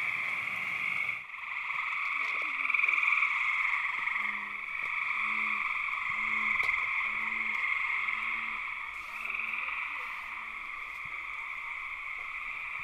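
Frogs calling at night: a steady high-pitched chorus, with about nine low croaks in an even rhythm, a little over one a second, from about four seconds in to about eleven.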